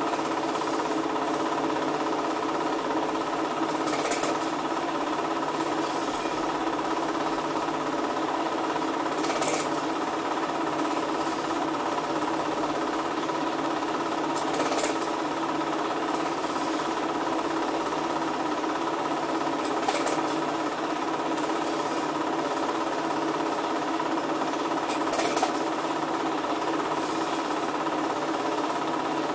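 Single 8 cine projector running: a steady, rapid mechanical clatter over a motor hum, with a sharper click about every five seconds.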